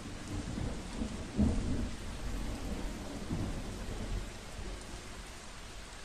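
Steady rain with low rolls of thunder, the loudest about a second and a half in, the whole slowly fading out.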